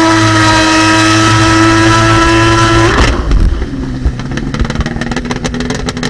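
Kawasaki 1100 ZXi jet ski's three-cylinder two-stroke engine running hard at a steady high pitch. About three seconds in the throttle comes off: the pitch drops and the engine runs lower and rougher, with many sharp clicks.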